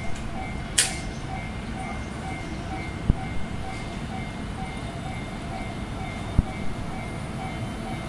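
Japanese level-crossing warning bell ringing its repeating electronic "kan kan" chime, about two to three strikes a second, over a low rumble. A short sharp hiss sounds about a second in, and dull thumps come twice.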